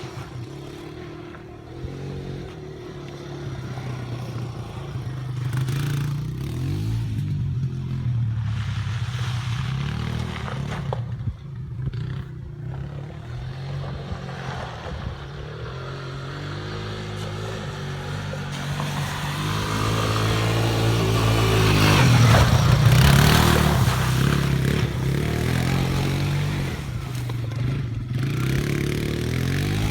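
Quad bike engine running and revving, its pitch rising and falling, loudest a little over two-thirds of the way through.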